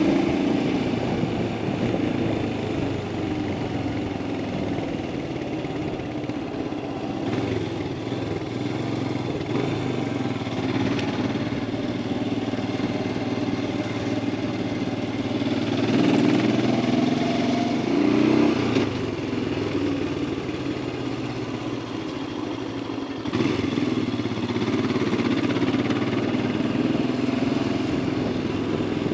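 Royal Enfield Himalayan 411's single-cylinder engine running under way, with road noise. It swells louder twice around two-thirds of the way in and steps up again a little later.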